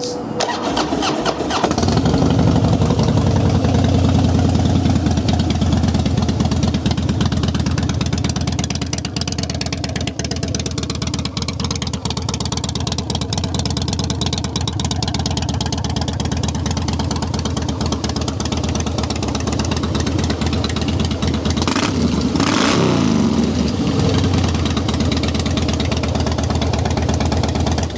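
A 2010 Harley-Davidson Fat Boy Lo's 96-cubic-inch Twin Cam V-twin, fitted with an aftermarket straight-through exhaust, is started. It catches about two seconds in and then idles steadily. The throttle is blipped once, about twenty-two seconds in.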